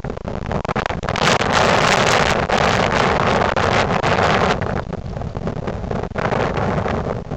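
1998 Ford Crown Victoria Police Interceptor's 4.6-litre V8 running with a leaking exhaust, growing loud about a second in and easing off a few seconds later. Wind rumbles on the microphone.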